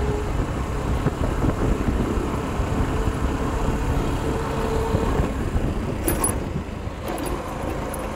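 Motorcycle engine running steadily on the move along a bumpy dirt road, with tyre and wind noise, and a few light clicks or rattles about six seconds in.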